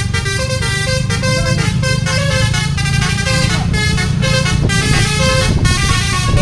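Multi-tone 'telolet' bus horn, a Basuri melody horn, playing a quick run of changing notes over a low rumble.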